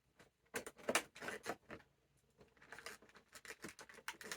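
Small packaging being handled by hand: a run of irregular crinkles, clicks and taps, with a busy stretch about half a second in and another through the second half.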